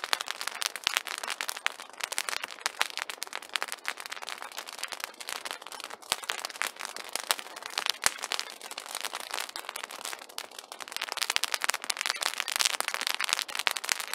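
Open wood campfire crackling, a dense stream of sharp pops and snaps, busiest near the end.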